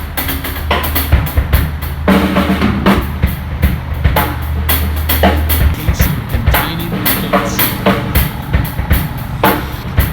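Outro music with a prominent drum kit: kick, snare and rimshot hits over a sustained bass line, with a steady beat.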